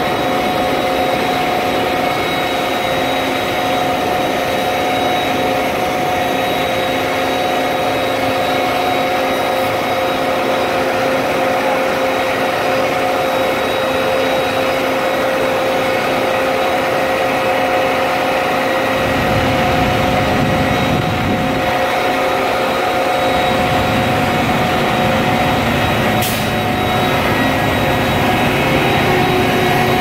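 Heavy diesel machinery of a concrete pour, the concrete pump truck and ready-mix mixer trucks, running steadily with a loud, constant whine. A deeper engine rumble joins about two-thirds of the way in.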